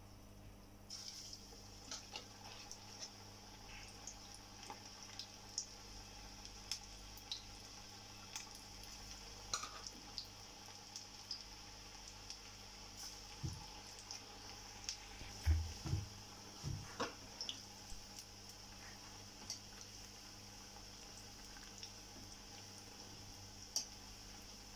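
Onion bhaji batter deep-frying in hot oil in a kadai: a steady sizzle with frequent crackles and pops, starting about a second in. A few dull knocks come around the middle.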